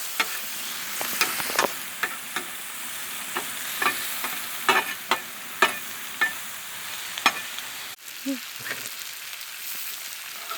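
Sliced mushrooms, zucchini and onions sizzling in butter on a Blackstone flat-top griddle, a steady frying hiss broken by irregular sharp clacks of a metal spatula on the steel cooktop.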